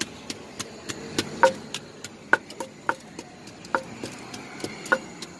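Wooden pestle pounding in a large clay mortar while som tam is being made: sharp knocks about three a second, uneven in strength, each with a short hollow ring.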